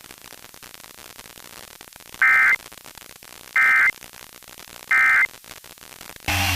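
Emergency Alert System end-of-message data bursts: three short, identical warbling digital tone bursts about a second apart over a faint static hiss, marking the end of the alert. Music starts just before the end.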